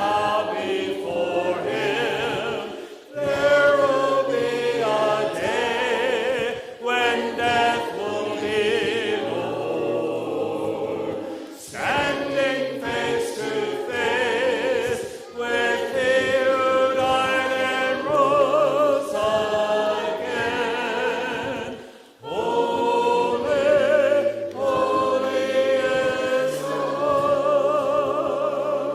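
A choir of voices singing together with vibrato, in sustained phrases broken by short pauses for breath.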